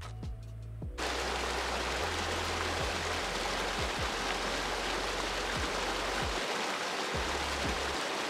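Rushing water, a stream or cascade, cuts in abruptly about a second in as a steady hiss. Background music with low bass notes and drum hits plays underneath.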